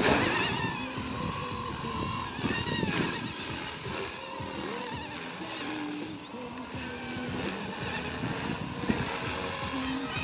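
Small electric RC helicopter (Blade 230 S) flying, its motor and rotor whine wavering up and down in pitch as it manoeuvres, with wind rumbling on the microphone.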